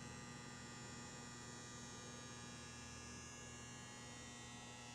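Faint, steady electrical hum, a stack of unchanging tones with no other sound.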